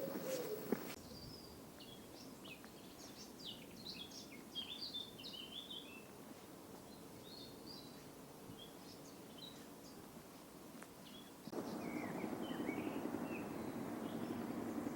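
Small songbirds chirping and twittering in quick, short calls. About eleven seconds in, a louder steady rumble with a low hum begins under the birds.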